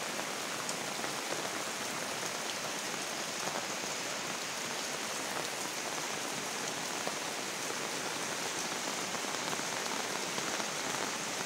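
Steady rain falling on leafy shrubs: an even hiss with scattered drop ticks.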